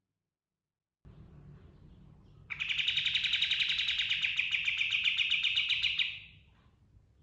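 Kapas tembak (katem) songbird singing one long, rapid rolling trill that starts abruptly about two and a half seconds in and stops about three and a half seconds later, over a faint low background hiss.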